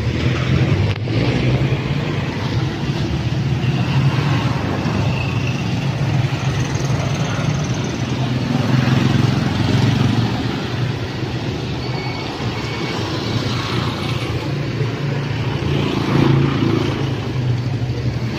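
Road traffic: small motorcycle engines and a motorcycle-and-sidecar tricycle running past close by over a steady low hum of traffic, swelling and easing a few times.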